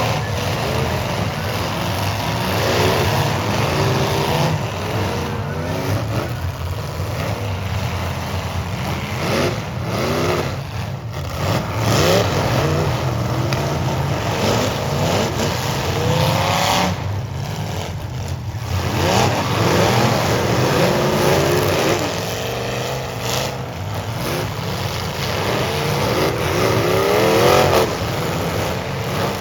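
Several full-size demolition derby cars' engines revving hard over and over, their pitch rising and falling, with the rumble of the engines underneath.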